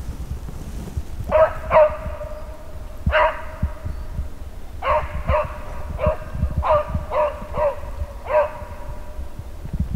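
Drever driving dog baying in an irregular series of about ten barks, the sound of the dog giving tongue as it drives game.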